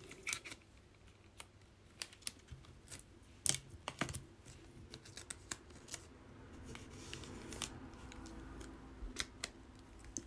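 Scattered small clicks and taps of plastic and card being handled, with a soft sliding rustle partway through as a trading card is slid into a plastic penny sleeve.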